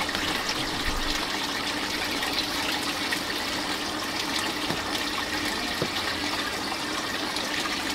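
Water running steadily through clear vinyl hoses into a plastic bin in an aquaponics system, with a faint steady hum underneath.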